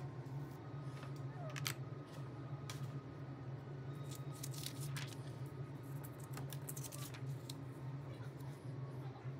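Sheets of paper being handled and slid across a table, with scattered rustles and light taps, heaviest about four to seven seconds in, over a steady low hum.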